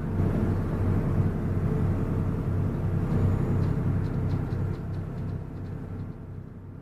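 Sightseeing boat's engine running with a steady low drone, along with the rush of wind and water. It gets quieter over the last couple of seconds.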